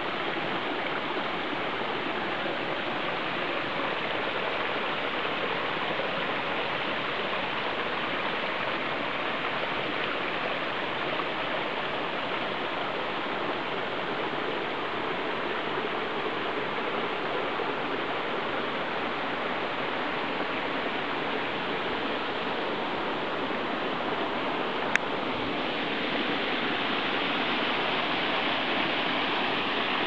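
Small rocky forest brook babbling steadily over stones, a continuous rush of water. One brief sharp click late on.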